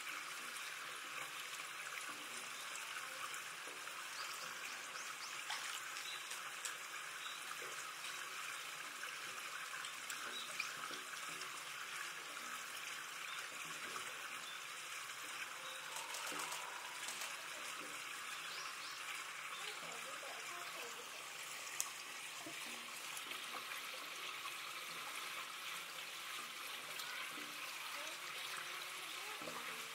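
Running water trickling steadily, with a couple of faint sharp clicks.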